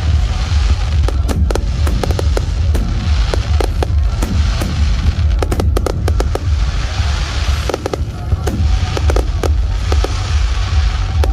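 Fireworks going off: a dense, irregular run of sharp cracks and bangs over a continuous low rumble of booming.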